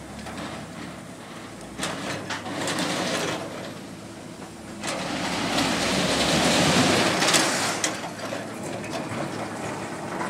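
Hydraulic excavator running while its bucket digs into a load of pig iron lumps on a flatbed trailer, the metal chunks knocking and clattering against each other and the steel bucket. A few sharp knocks come about two seconds in, and the clatter is loudest and densest from about five to eight seconds in as the bucket scoops through the load.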